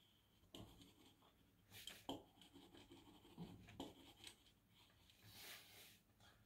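Faint graphite pencil lead scratching on paper: several short strokes, then a longer, hissier shading stroke about five seconds in.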